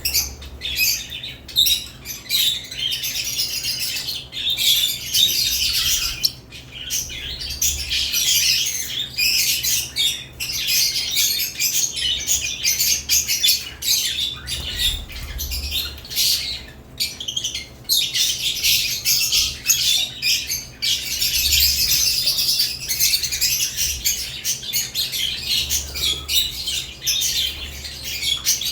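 Several lovebirds chattering and squawking without pause, a dense mix of short, high-pitched chirps and calls.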